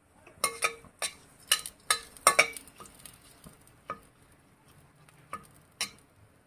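Steel spoon stirring and clinking against a metal kadai as whole spices and bay leaves fry in hot mustard oil, over a faint sizzle. A quick run of sharp clinks in the first couple of seconds, then a few scattered ones.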